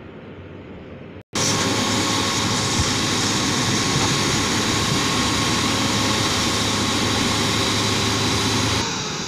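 Heavy tipper dump truck's diesel engine running loud and steady while its body is raised to tip the load. It cuts in abruptly after a brief dropout about a second in and eases off near the end.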